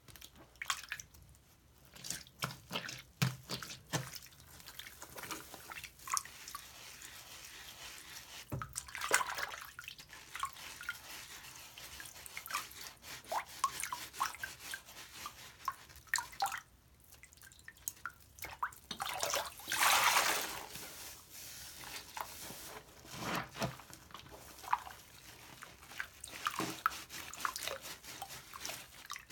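Large wet sponge being rubbed with a bar of Play-Doh soap and squeezed in a sink of shallow water: wet squishing, splashing and dripping in irregular bursts, with a louder rush of water about twenty seconds in.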